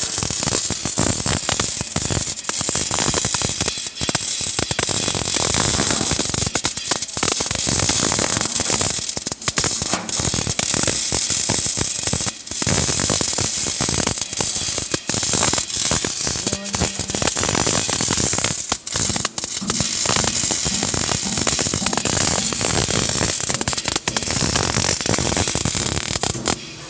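MIG welding arc crackling and sizzling steadily, with a few short breaks where the arc stops.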